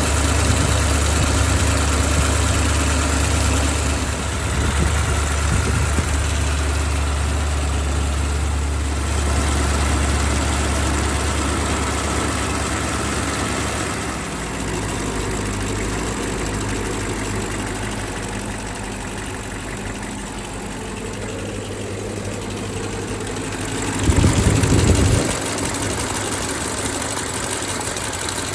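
BMW X5 E70 4.8i V8 engine idling steadily with the drive belt removed. The water pump, whose worn-out bearing made the rattle, is not turning, so the noise is gone. The low hum shifts about halfway through, and there is a brief louder swell near the end.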